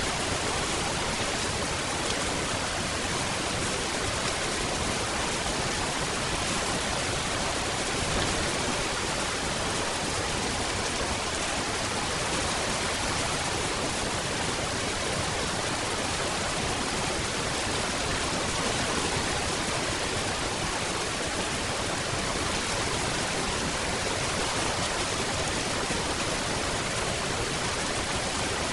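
Steady heavy rain: a dense, even hiss of falling rain at a constant level, with no distinct drops or other events standing out.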